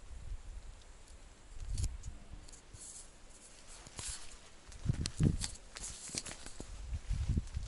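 Wind buffeting an action camera's microphone in uneven low gusts. Brief rustles and clicks of handling come as the camera is swung about.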